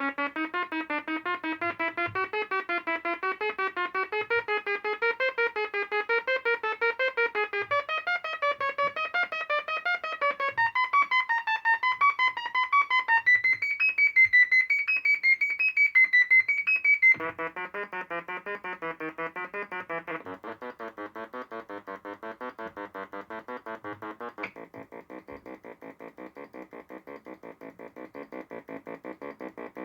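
Homemade synthesizer played by a shift-register step sequencer: a fast looping scale of short electronic notes, about four a second, rising and falling. The pattern steps up in pitch several times, then about two-thirds of the way through drops abruptly to a lower, buzzier tone that changes timbre twice more.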